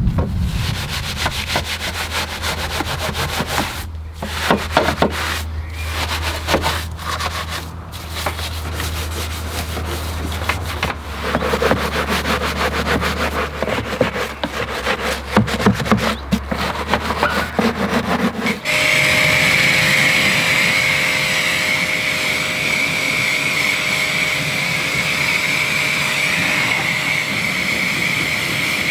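A long detailing brush scrubbing the soapy engine bay in quick, uneven rubbing strokes, over a low steady hum. About two-thirds of the way through, a pressure washer starts spraying the engine bay with a steady hiss of water.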